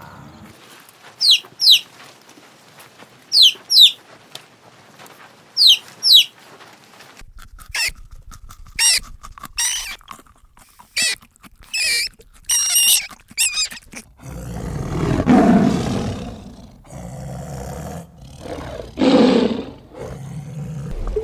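Farm animals calling: three pairs of short, high, falling chirps or squeals, then a quicker run of high calls, and near the end two louder, lower, rougher calls.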